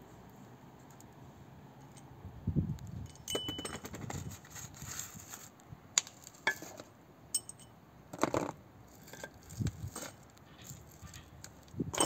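Scattered metallic clinks and taps, one with a brief ring, with a few dull knocks between them: tools and metal parts being handled during disassembly of an old Land Rover.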